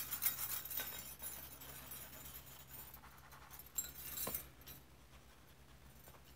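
Faint scratching of an oil pastel on paper, with a few light clicks and taps as the pastel stick is handled; the sharpest clicks come about four seconds in.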